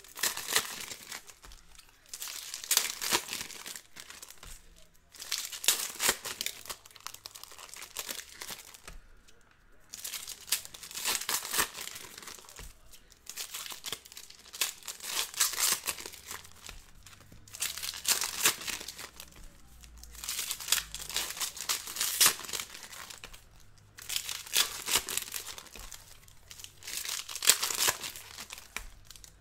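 Foil trading-card pack wrappers crinkling and tearing as packs of hockey cards are ripped open one after another, in crackly bursts every two to three seconds.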